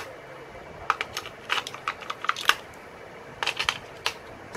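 Batteries being pushed into the plastic battery compartment of a toy drone's remote controller: a run of sharp plastic-and-metal clicks and rattles in small clusters as the cells snap against the spring contacts.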